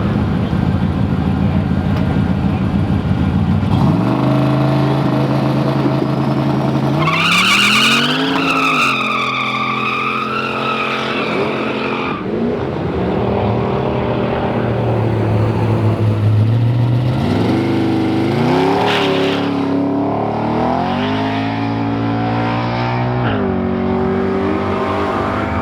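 High-powered drag race car engines revving, their pitch climbing and dropping several times. Tires squeal in a burnout for several seconds, about a third of the way in.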